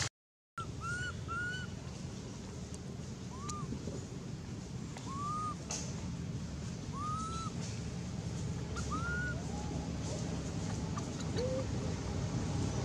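About eight short animal calls, each a quick rise and fall in pitch, come singly every second or two, a couple of them lower-pitched. A steady low rumble runs underneath.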